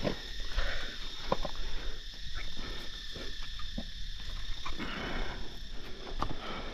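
Hands and shoes scuffing and knocking against sandstone while clambering up a rock, with a few sharp knocks, over a steady high-pitched insect drone.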